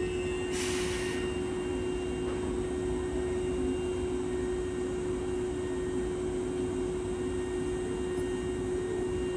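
Hankyu 7000-series electric train standing at the platform, its onboard equipment giving a steady hum on one tone. A short hiss of air comes about half a second in.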